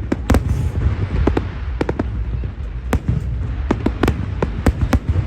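Fireworks going off: a quick, irregular run of sharp bangs and cracks over a steady low rumble.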